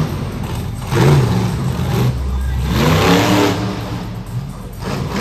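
Monster truck engine revving hard, its pitch surging up and falling back twice as the truck accelerates and launches off a jump.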